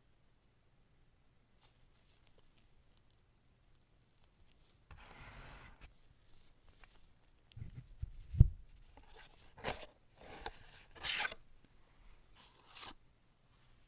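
Smartphone box packaging being opened by hand: plastic wrap and paper tearing and rustling in several short bursts, with one sharp knock about eight seconds in. The first few seconds are almost silent.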